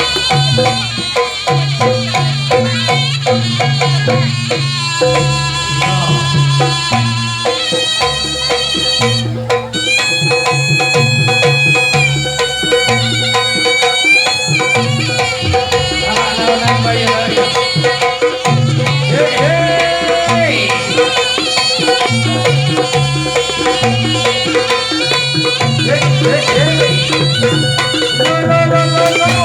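Live Javanese jaranan music: kendang hand drums beating a quick pattern under gamelan-style pitched percussion, a steady held tone, and a reedy, shawm-like melody line.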